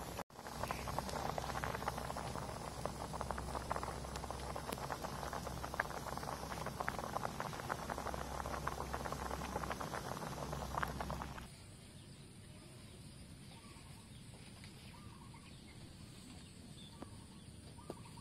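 Water boiling in a large steaming pot, a dense bubbling crackle that cuts off suddenly about eleven seconds in. After that, quiet outdoor background with a few faint bird chirps.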